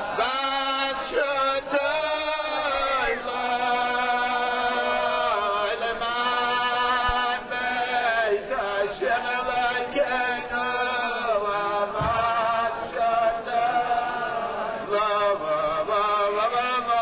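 A voice chanting a melody in long held notes that bend and glide in pitch.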